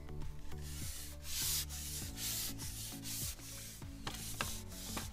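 Background music: held synth chords that change in a steady rhythm, with repeated hissy percussion swells.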